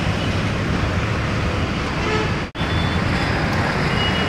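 Steady road traffic: engines of passing vehicles running, with a few short horn toots. The sound cuts out for a split second about halfway through, then carries on.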